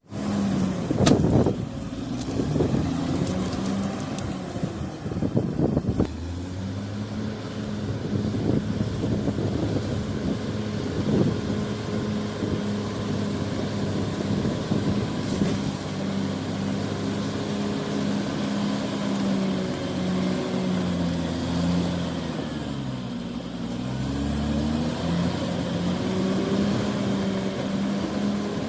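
Heavy diesel engine of earthmoving machinery running under load, its pitch sagging and recovering about two-thirds of the way through. Sharp metallic knocks sound in the first few seconds, with a thin high whine above the engine.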